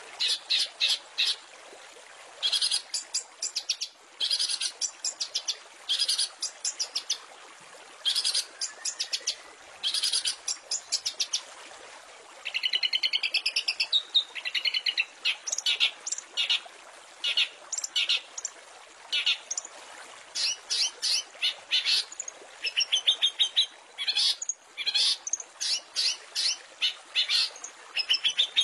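Long-tailed shrike (cendet) singing: bursts of rapid chattering trills, each about a second long and separated by short gaps, with a warbling run of notes about halfway through.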